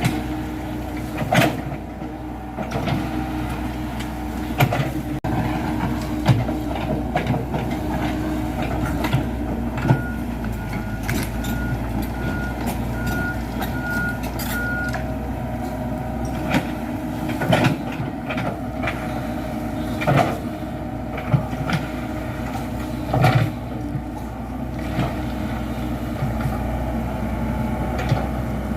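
Komatsu PC78 hydraulic excavator's diesel engine running steadily under work, with frequent sharp clanks and knocks from the machine at work. A high beeping alarm sounds about two times a second for about five seconds near the middle.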